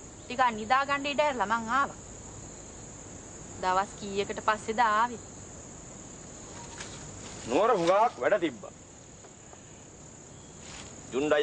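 Steady high-pitched chirring of insects, with a person talking in three short phrases over it.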